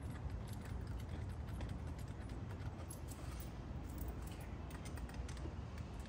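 Light, irregular metallic clicks and rattles of small hand tools and hardware being handled at a car's shifter mount, over a steady low hum.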